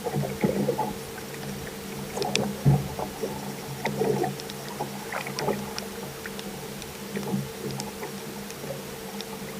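Fishing boat on the water: a steady low motor hum with scattered knocks and short water slaps against the hull.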